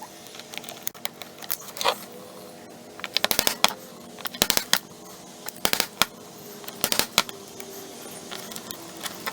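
Thin plastic sheet being cut and carved with a hand tool: quick clusters of sharp clicks and snaps, a few strokes at a time, about once a second, over a faint steady hum.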